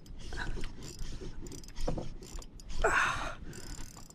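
Shimano spinning reel being cranked while playing a fish on an ultralight rod: the rotor and gears whirring and clicking against a rumble of handling, with a brief louder rasp about three seconds in.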